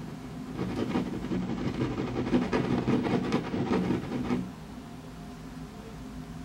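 A low, steady drone of several held tones, with a rattling, clattering noise of rapid clicks swelling over it from about half a second in and dying away after about four seconds.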